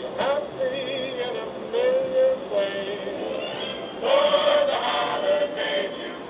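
Recorded choir singing, with held, wavering notes, sounding thin, with no treble, as from the Department 56 train station display's small built-in speaker. A sharp click sounds just after the start.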